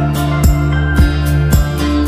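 Background music with a steady beat, about two beats a second, over sustained instrument notes.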